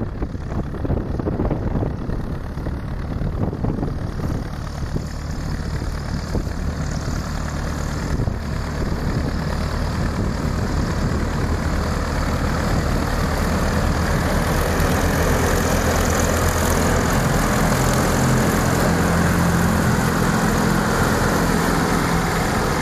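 Zetor 7011 tractor's four-cylinder diesel engine running steadily while pulling a 2 m grass mower through a field, getting louder from about halfway through as the tractor comes close and passes.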